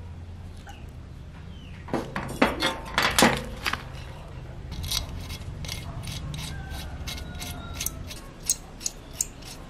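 Mechanical work on small metal parts: a cluster of sharp metal knocks, then a regular run of clicks, over a steady low hum that stops about eight seconds in.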